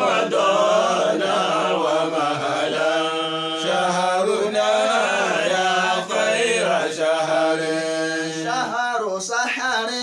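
Voices chanting a nasheed welcoming Ramadan: long, drawn-out wavering melismatic notes held over a steady low drone, with no instruments.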